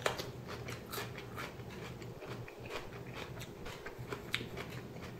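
Faint crunching of a raw, thick-walled Shepherd's Ramshorn sweet pepper being bitten and chewed: a run of small crisp clicks, with one sharper crunch about four seconds in.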